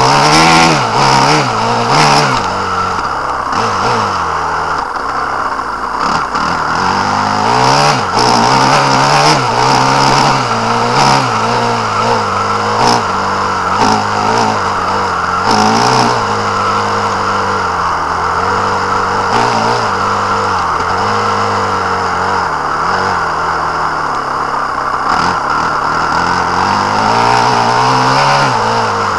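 A small off-road vehicle's engine running and revving up and down as it drives over rough grassy ground, with a few knocks from bumps.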